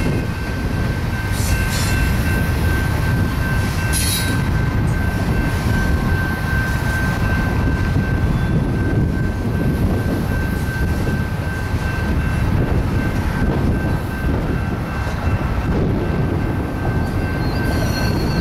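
Double-stack container train rolling past: a steady heavy rumble of wheels on rail with a thin, steady wheel squeal over it. A couple of sharp clacks come in the first few seconds, and a brief higher squeal near the end.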